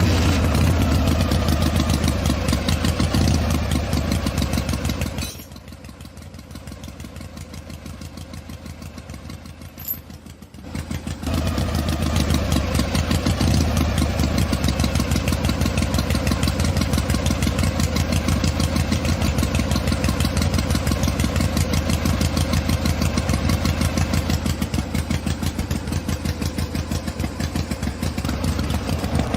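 A small motor running steadily with a fast, even pulsing beat and a low hum. It drops much quieter about five seconds in and picks back up about six seconds later.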